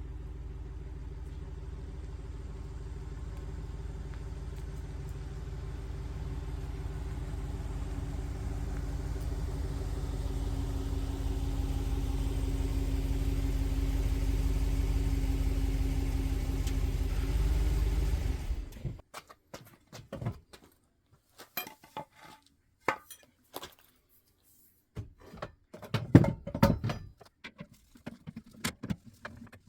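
Vehicle engine running steadily and growing louder, then stopping abruptly about two-thirds of the way through. Scattered sharp clicks and knocks follow.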